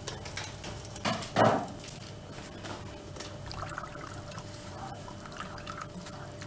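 Silicone whisk stirring a thin milk-and-oil mixture in a plastic bowl, the liquid sloshing and splashing. One louder splash or knock about a second and a half in.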